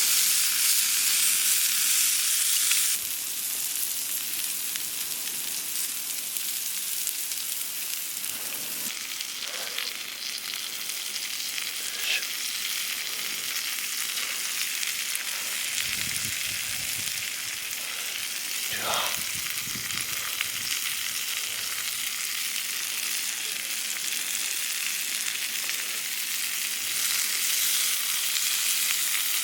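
Food sizzling steadily in a hot pan, a little louder for the first three seconds and then settling to an even sizzle.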